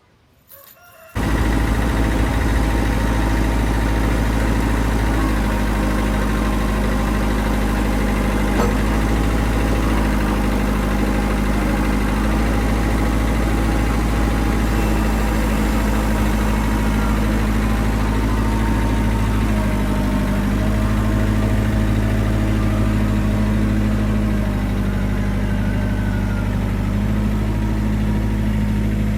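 Engine of a machine with lifting forks running steadily while lifting a slung section of sawmill track, its speed shifting up and down a few times. It comes in abruptly about a second in.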